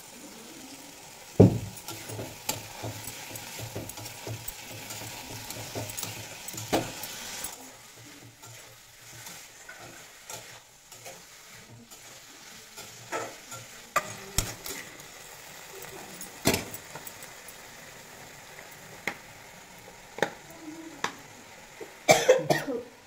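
Metal spatula stirring lotus-root slices and potatoes in a metal kadai, with scattered scrapes and knocks against the pan over the sizzle of the curry frying. The sizzle is stronger at first and quieter from about eight seconds in, and a quick run of knocks comes near the end.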